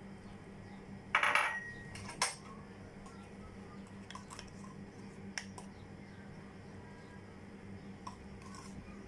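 Kitchen utensils clatter against a glass mixing bowl about a second in, with a brief ringing note. A sharp clink follows, then a few light clicks over a steady low hum.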